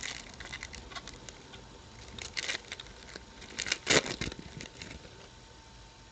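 A trading-card pack's plastic wrapping crinkling and tearing as the pack is opened, and the cards rustling in hand. This comes in short bursts, with the loudest crackle and bump about four seconds in.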